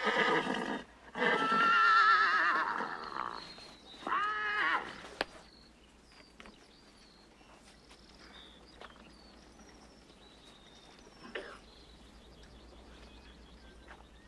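Horses whinnying: two long, wavering whinnies in the first three seconds, then a shorter one about four seconds in. After that only faint small clicks and brief high chirps are heard.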